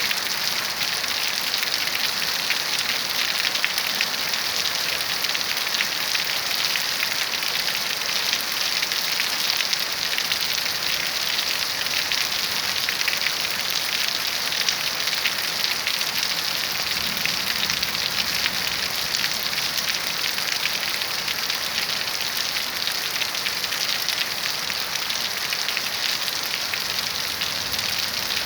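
Heavy rain falling steadily, a constant hiss of drops hitting surfaces.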